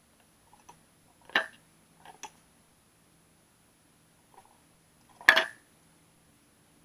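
A cat at a dish of small live fish, knocking against the container: scattered light clinks and knocks, the two loudest about a second and a half in and just after five seconds in.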